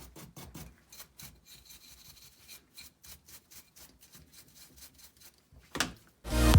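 Faint rubbing and scraping strokes from cleaning a multi-tool part by hand, a few a second at first and then sparser, with one louder stroke near the end. Music fades in at the very end.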